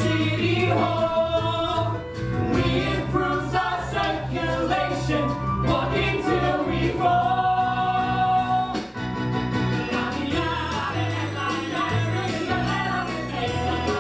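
Musical theatre cast singing an up-tempo ensemble number in chorus over a live band, with a steady beat.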